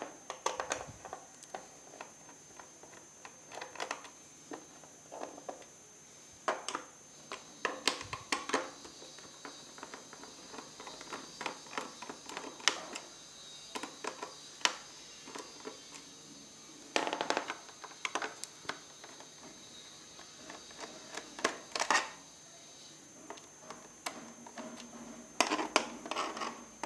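Screws being taken out of the underside of a Dell laptop with a small screwdriver: irregular light clicks, taps and scrapes of the screwdriver and of screws being set down.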